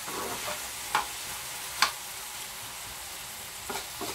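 Diced sweet peppers and vegetables sizzling in oil in a frying pan, stirred with a metal spoon that scrapes and clicks against the pan. Sharper knocks come about one second in and just before two seconds, with a few lighter ones near the end.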